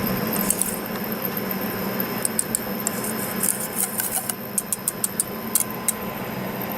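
A spoon clicking and scraping in a bowl of thick pancake batter, a run of light quick taps, over a steady background hum.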